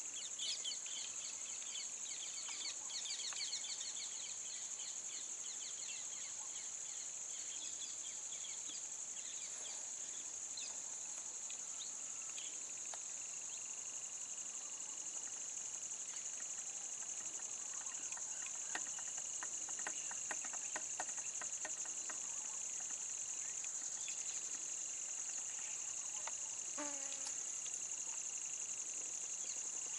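Steady high-pitched drone of insects, with bird chirps in the first few seconds and a run of fast ticking about two-thirds of the way through.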